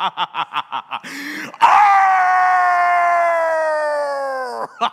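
A man laughing in quick, even bursts, a sharp breath in, then a long wolf-like howl held for about three seconds, its pitch sliding slowly down and falling away at the end.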